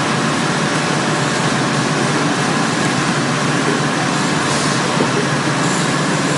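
Automatic facial tissue packing machine running, a loud, steady mechanical noise without a clear beat.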